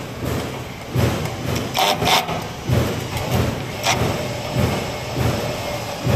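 Cordless drill-driver running in short uneven pulses, driving M5 screws through a stainless steel hinge, with two sharp clicks about two seconds in and again near four seconds.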